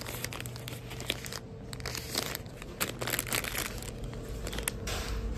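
Plastic wrappers of packaged cakes crinkling as they are sorted and picked up by hand: an irregular string of sharp crackles over a steady low hum.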